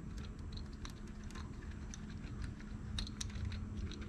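Faint, irregular small clicks and scrapes of loosened engine-bay screws being turned out by a gloved hand, over a low steady hum.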